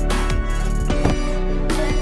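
Background music with a kick-drum beat under sustained chords.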